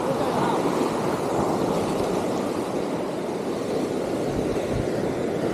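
Steady rush of sea waves washing on the shore, mixed with wind noise on the microphone.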